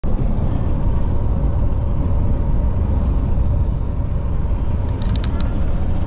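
Steady low rumble of road and engine noise inside the cabin of a car driving along at speed. A few faint short ticks come about five seconds in.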